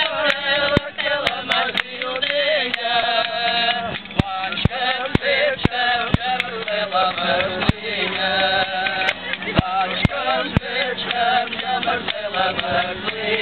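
Men singing a folk song in full voice to a strummed guitar, with a tambourine and sharp percussion hits keeping the beat.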